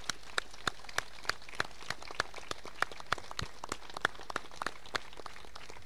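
Sparse, faint applause from a few people clapping, separate claps a few times a second, stopping shortly before the end.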